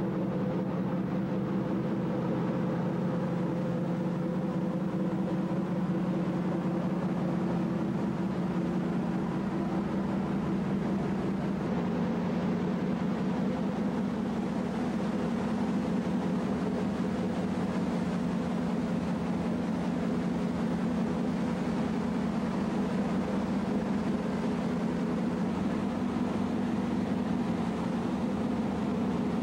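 Steady low drone of a ferry's engines heard on deck, a constant hum with a rushing noise over it.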